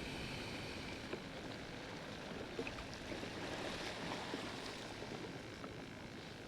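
Steady wash of waves and moving water, with a few faint small clicks.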